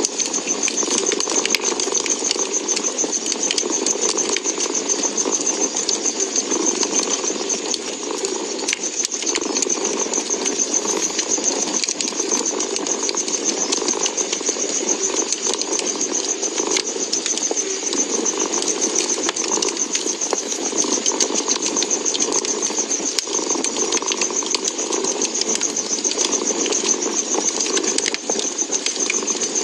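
A cat purring steadily over a crackling wood fire, with frequent small pops and crackles scattered throughout.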